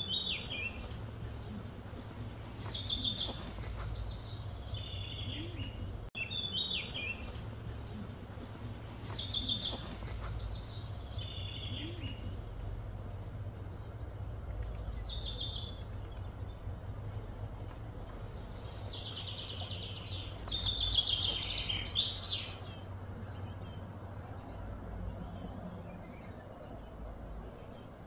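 Wild birds singing and chirping in repeated short phrases, with a busier stretch about two-thirds of the way through, over a steady low background hum.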